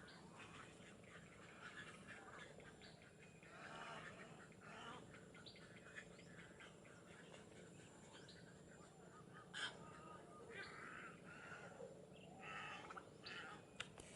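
Faint mixed calls of wetland birds, many short calls overlapping throughout, with a sharper call about ten seconds in.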